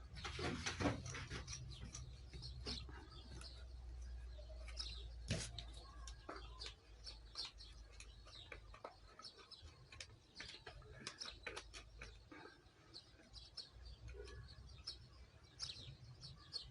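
Faint chirping of small birds, with scattered light clicks and taps over a low steady hum.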